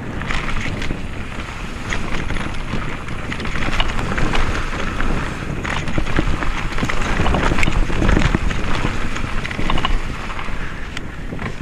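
Wind buffeting an action camera's microphone on a fast mountain-bike descent, a dense rumbling rush, with many quick clicks and knocks as the Specialized Kenevo rattles over the rough dirt trail. It grows louder in the middle as speed picks up.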